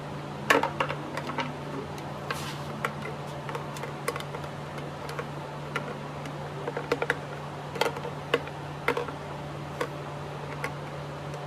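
Irregular light clicks and taps of small parts being handled while a fuel filter and fuel line are fitted back onto a 49cc engine, the sharpest about half a second in and a cluster between about seven and nine seconds, over a steady low hum.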